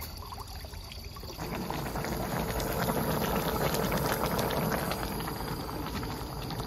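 Pot of beef and mushroom doenjang stew boiling: a dense, crackly bubbling that swells up about a second and a half in and keeps going.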